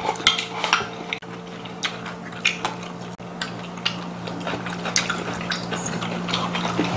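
Close-up eating sounds: soybean-paste soup slurped from a bowl, chewing, and repeated light clicks of chopsticks against bowls, over a steady low background hum.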